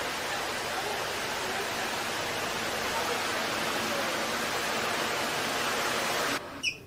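Loud steady hiss with faint voices under it, which cuts off suddenly near the end and is followed by one short sharp sound.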